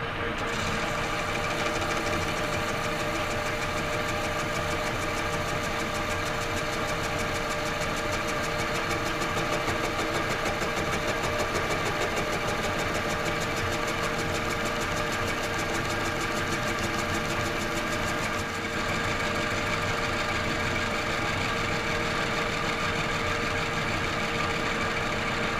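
Monarch engine lathe running under power as a tool faces the side of a hardened, not yet tempered 4140 steel cable sheave: a steady mechanical whine with several fixed tones. It starts at the beginning and dips briefly about two-thirds of the way through.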